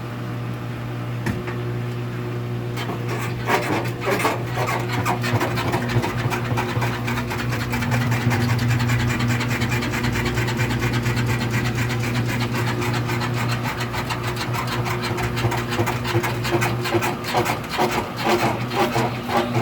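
Rapid, repeated rubbing squeak over a steady low hum, setting in a few seconds in and continuing.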